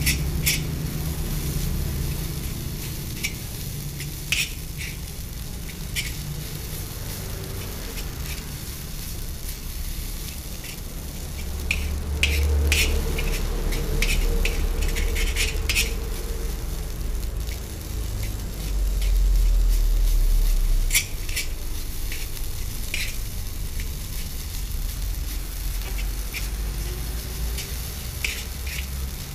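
Egg fried rice sizzling in a large metal wok as it is stir-fried, with a metal spatula scraping and clinking against the pan every few seconds. A low rumble swells in the second half and cuts off suddenly.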